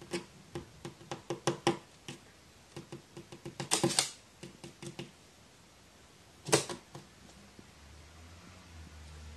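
Irregular sharp taps and clicks on a hard surface, in quick runs, with a dense flurry about four seconds in and one louder snap a couple of seconds later.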